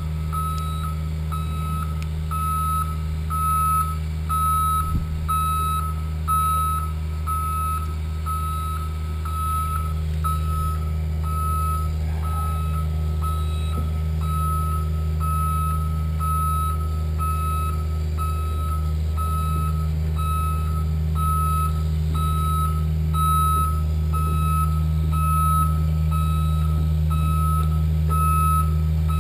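A vehicle's reversing alarm beeping at an even, steady pace, over the steady low hum of a truck engine running.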